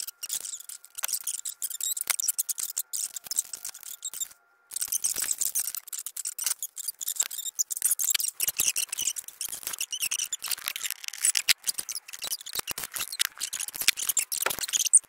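Rapid run of sharp clicks, snips and crackles from hand work on wiring: stripping wire and crimping ring terminals with a hand crimping tool. There is a short break about four and a half seconds in.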